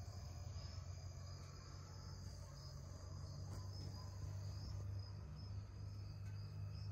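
Crickets trilling steadily and faintly over a low steady hum.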